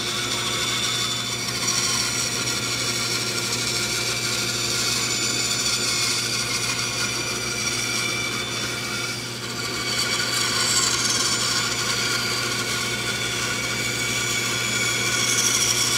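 Shop Fox bandsaw running and ripping the corner off a pine 4x4 held in a 45-degree sled jig, the blade rasping steadily through the wood over the motor's constant hum, with a shop vacuum running for dust collection.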